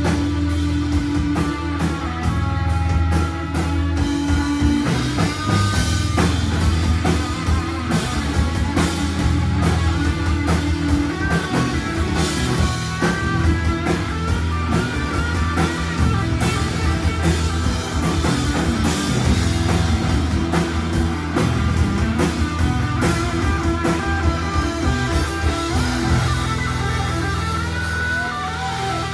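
Live blues-rock band playing an instrumental passage with no vocals: electric guitar lines over electric bass and drum kit, with a rising guitar bend near the end.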